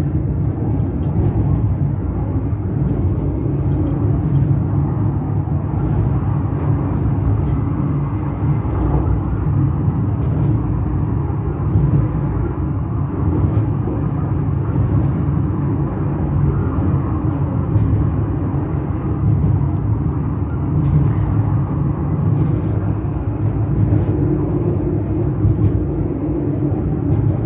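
Funicular car running downhill on its rails: a steady low rumble with scattered faint clicks.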